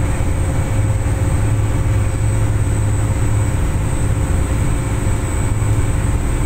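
Fast passenger ferry's engines running with a steady, loud low drone, heard from inside the enclosed passenger cabin.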